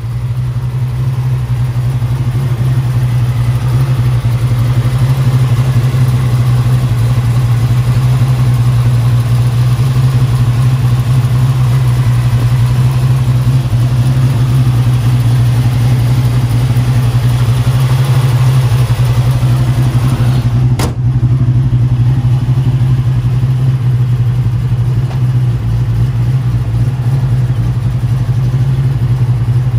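A 333 cubic-inch stroker small-block Ford V8 idling steadily, heard over the open engine bay. One brief click comes about two-thirds of the way through.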